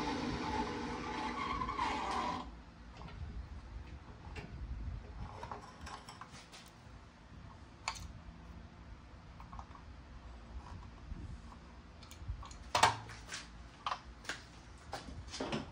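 Drill press with a wire cup brush running steadily, cutting off about two seconds in. Then scattered clicks and knocks as a plastic toy car is handled and lifted out of the steel drill-press vise, with one sharp knock near the end.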